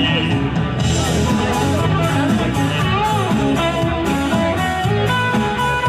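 Live rock band playing, with guitars to the fore over a steady beat.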